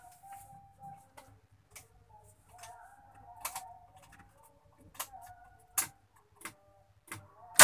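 Scattered light clicks and taps from handling the cab and controls of a 1988 Suzuki Carry Extra van just before its engine is started, with a faint wavering tone in the background.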